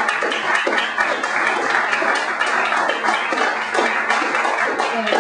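Audience applauding: many overlapping hand claps, steady and fairly loud.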